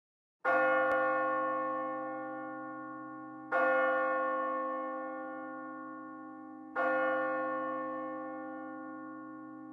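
A bell struck three times, about three seconds apart, each stroke ringing on and slowly fading until the next.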